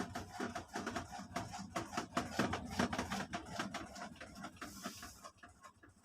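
Rapid, irregular mechanical clicking and rattling from the Panasonic washing machine, easing off near the end.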